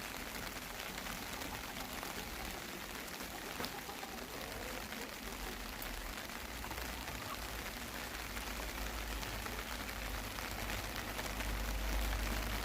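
Steady monsoon rain falling and pattering on surfaces, with a low rumble that swells about halfway through and again near the end.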